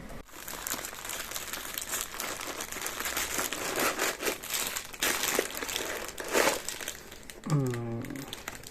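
Plastic packaging crinkling and rustling in irregular crackles as a parcel is unwrapped by hand. A short vocal sound comes near the end.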